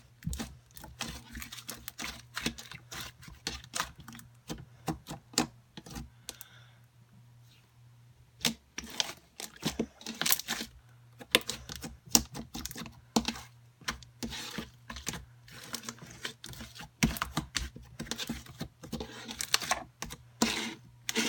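Instant snow slime being squished and poked by hand, giving a string of short crackly clicks and squelches, with a brief pause near the middle.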